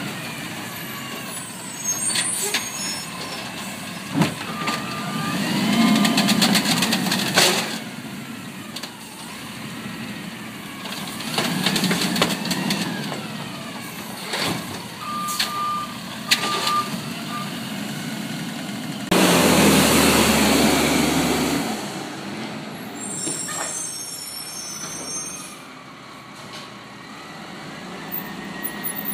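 Automated side-loader garbage truck at work: the diesel engine revs as the hydraulic arm whines up and down, lifting and dumping carts, with clanks and a couple of short beeps. About twenty seconds in there is a loud air-brake hiss before the truck moves off.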